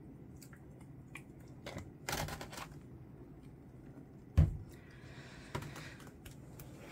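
Hands working with a plant pot and potting soil. Scattered light clicks and rustling, a short burst of rustling about two seconds in, then a sharp knock past the middle, a soft brief hiss and another lighter knock.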